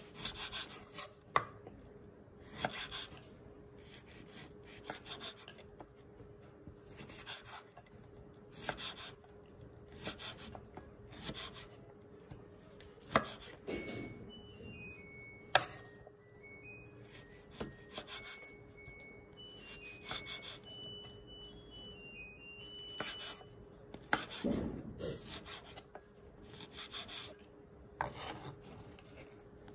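Kitchen knife dicing sausage on a wooden cutting board, cutting about once a second, with a few sharper knocks of the blade on the board. A faint tune of high notes plays in the middle.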